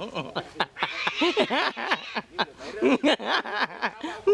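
People laughing, in quick repeated ha-ha syllables with some excited voices mixed in.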